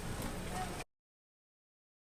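Steady low hum with a few faint clicks, cutting off abruptly to dead silence a little under a second in.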